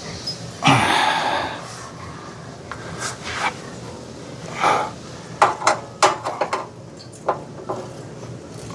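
Small metallic clicks and taps as a screwdriver and screw knock against the sheet-metal control box of a pellet grill. The clicks come in a quick cluster about five to seven seconds in, with a couple of loud breathy noises earlier.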